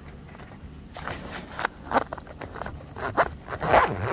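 Zipper on a soft fabric tool pouch being pulled in several short, scratchy strokes, with rustling as the pouch is handled; loudest near the end.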